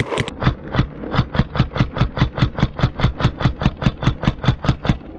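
Paintball marker firing a steady rapid string of shots, about six a second, for roughly four and a half seconds before stopping.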